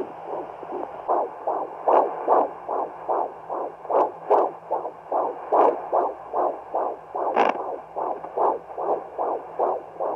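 Unborn baby's heartbeat played through the speaker of a Hi-bebe handheld fetal Doppler: fast, even pulses, about two and a half a second, with the display reading about 149 beats a minute, a normal fetal heart rate. A few brief clicks come through on top.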